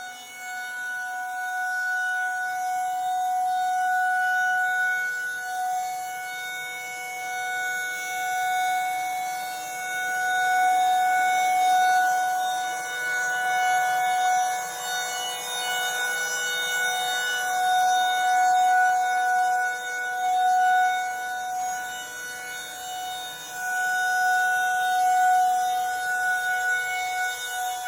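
Federal Signal 2001-SRNB outdoor warning siren sounding a steady single-pitch tone. Its loudness swells and fades every few seconds as the horn turns toward and away.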